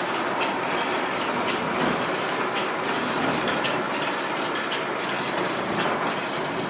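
Large square baler running: a steady mechanical clatter with irregular clicks and knocks from its moving parts, several a second.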